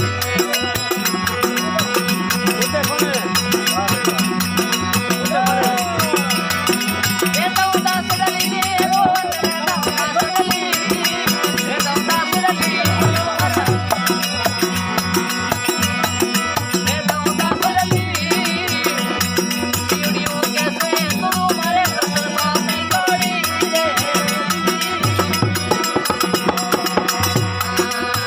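Folk devotional bhajan music: a wavering melody line over sustained drone tones, with a steady, dense rhythm of rattling hand percussion.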